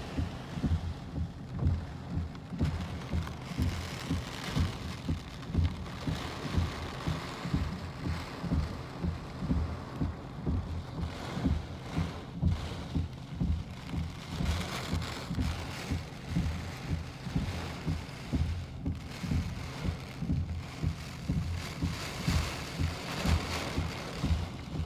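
Storm wind and rain, with low thuds repeating about once a second over a steady hiss.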